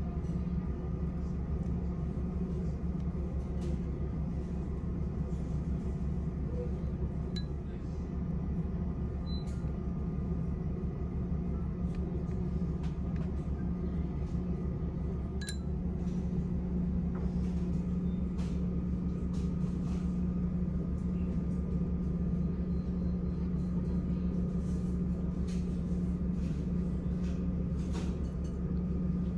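Steady low hum of a passenger ferry's machinery carried through the ship. A few faint clinks of chopsticks against ceramic bowls sound over it.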